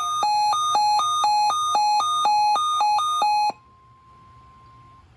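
Weather radio alert alarm beeping about four times a second in a two-pitch warble, sounding for a severe thunderstorm watch; it cuts off abruptly about three and a half seconds in. A faint steady attention tone carries on briefly after it.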